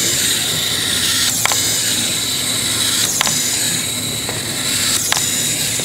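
Clockwork wind-up walking toy running: a steady whir from its spring-driven gears, with a sharp click every second or two.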